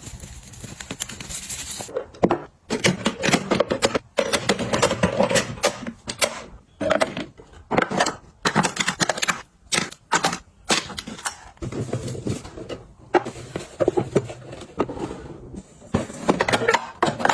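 Small hard objects being handled and set down: quick runs of clicks, clacks and rustles with brief pauses, starting about two seconds in after a softer hiss.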